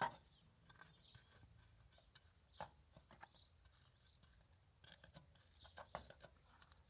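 Near silence broken by a few faint, scattered taps and scrapes as wet cement mortar is worked into place; the mix is too wet and sags.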